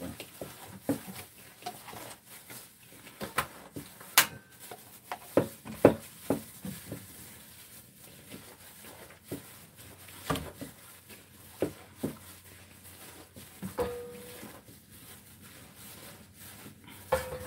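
Hands mixing wet pancake batter in a glass bowl, with scattered light clicks and knocks from handling the bowl, oil bottle and frying pan.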